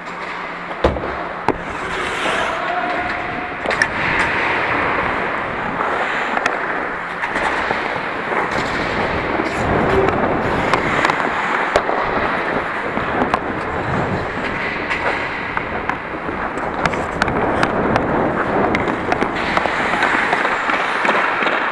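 Ice hockey skate blades scraping and carving across the ice during play, with sharp clacks of sticks and puck scattered throughout.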